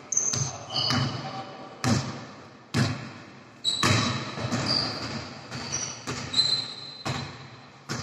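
A basketball being dribbled on a hardwood hall floor, bouncing about once a second, each bounce echoing around the hall. Short high squeaks of sneakers on the court come in between.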